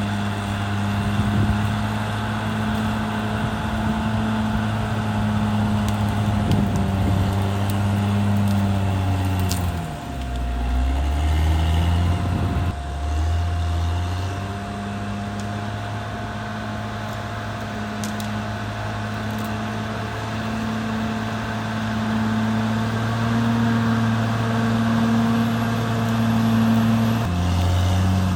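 CAT D6R XL bulldozer's diesel engine running steadily under load, with a steady higher whine over it. About ten seconds in the revs drop briefly and then pick back up.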